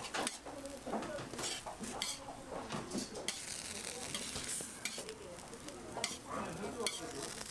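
Patties sizzling on a flat steel griddle, a steady frying hiss broken by sharp clicks and scrapes of a metal spatula on the griddle plate.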